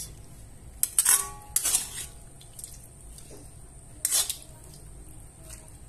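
Metal ladle clinking and scraping against a metal wok while squash stew and broth are scooped out into a serving dish. There are a few sharp clinks, the loudest about a second in and about four seconds in.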